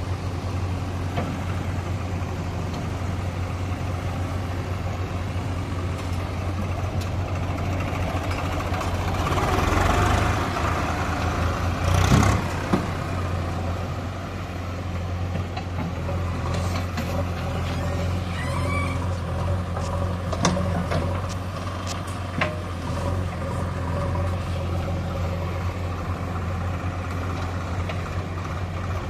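Diesel engine of a JCB 3DX backhoe loader running steadily under work, revving up for a couple of seconds and then followed by a single loud clank.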